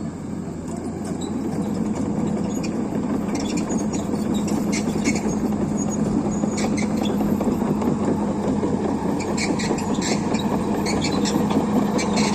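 XCMG 210C crawler excavator's diesel engine running steadily as the machine travels on its tracks, growing a little louder over the first couple of seconds. Clusters of sharp metallic clicks come and go, mostly around the middle and near the end.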